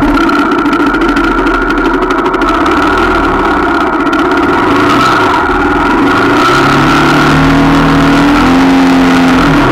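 125cc motorcycle engine running as the bike rides along at a steady pitch, then climbing in pitch over the last few seconds and dropping back near the end.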